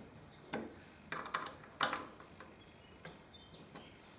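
Parts of a small mini lathe with an aluminium bed being handled: a few light metallic clicks and knocks, about four, in the first two seconds.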